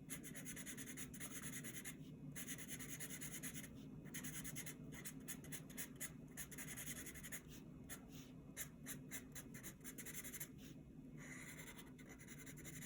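Crayon scratching back and forth on paper while colouring in a drawing, faint, with a few short pauses.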